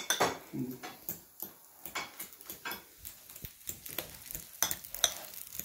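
A metal spoon mashing and stirring avocado in a ceramic bowl, with irregular clicks and scrapes of metal against the bowl and soft wet squishing.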